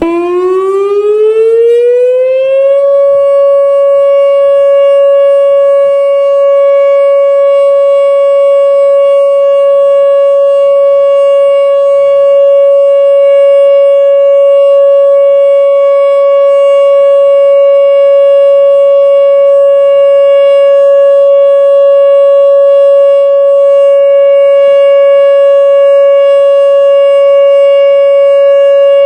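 Whelen WPS-2904 electronic storm siren sounding its steady alert tone in a weekly test. The pitch rises over the first few seconds, then holds a loud, steady 560 Hz tone.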